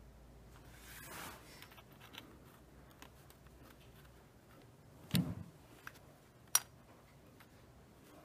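Sea shells being handled and pressed onto a canvas panel: light clicks and knocks of shell on board, the loudest a thump about five seconds in and a sharp click about a second and a half after it.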